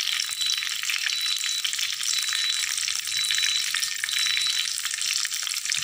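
Rancid coconut oil sizzling and crackling steadily in a metal wok as a small piece of tamarind fries in it, a dense, even crackle. The oil is being heated until the tamarind is well fried, to take away the rancid smell.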